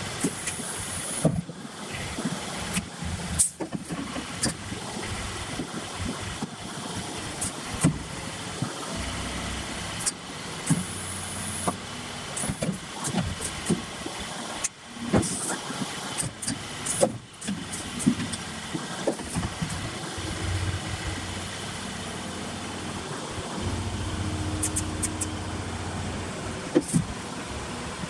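Isuzu tilt tray truck's diesel engine running steadily to drive the hydraulics while the tray is moved by radio remote control, with many scattered clunks and clicks and a few short high hisses.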